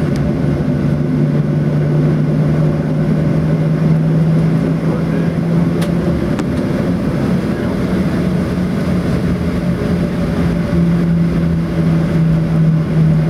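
Cabin noise of a Boeing 737-800 taxiing: the steady hum and drone of its CFM56-7 engines with a low rumble beneath, the hum dipping briefly about halfway through. A single faint click about six seconds in.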